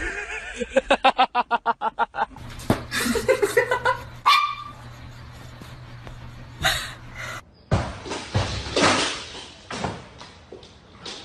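A dog barking in a quick run of short, yappy barks, about eight a second, followed by other brief animal and household sounds.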